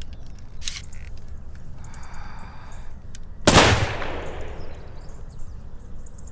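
A single gunshot about three and a half seconds in, the loudest sound, its tail fading out over a second or so, above a low steady rumble. A sharp click comes just under a second in.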